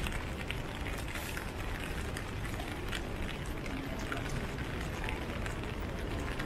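Rain falling in a city street, many small drop clicks over a steady hiss, with a low, steady rumble of street noise underneath.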